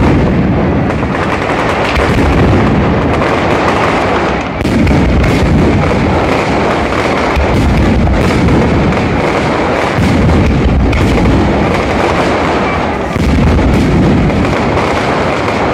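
Aerial firework shells bursting in a dense, continuous barrage of overlapping bangs and booms, loud.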